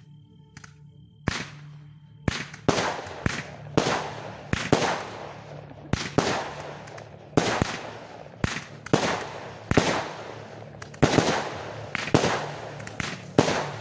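Aerial fireworks going off in a rapid string of sharp bangs, about one to two a second. The bangs start about a second in, and each has a short fading tail.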